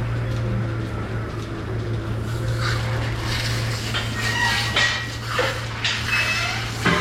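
Steady low hum of milking-parlour machinery, with a series of short, irregular hissing and clattering bursts starting about two and a half seconds in.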